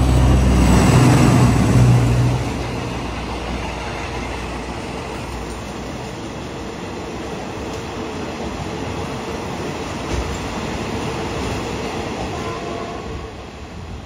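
Alsthom diesel-electric locomotive 4307 passing close, its engine loud for about the first two seconds. Then come the passenger carriages, with a steady rumble of wheels on the rails that fades a little near the end as the train draws away.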